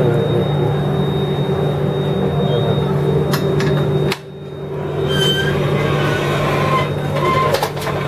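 Running noise of a moving Shatabdi Express coach heard from inside its vestibule: wheels on the rails under a steady hum. A few clicks come from the toilet door being handled about three and a half seconds in, and the noise drops sharply just after and builds back within about a second.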